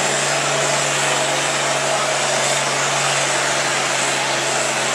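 Turbocharged International Harvester diesel tractor engine running hard and steady under load, pulling a sled down the track, its pitch held even with a dense hiss of turbo and exhaust noise.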